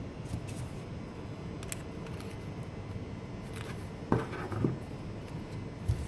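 Faint clicks and small taps of a micro Phillips screwdriver setting and driving a tiny screw, with a couple of louder knocks about four seconds in and another near the end.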